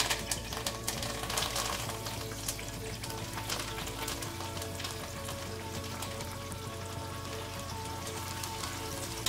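Chopped parsley and garlic chips deep-frying in hot vegetable oil, held in a wire skimmer: a steady sizzle full of fine crackling as the herbs crisp.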